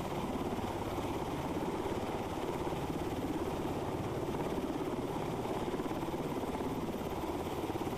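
Rescue helicopter hovering low overhead, its rotor giving a steady, rapid beat over the whine of the engine.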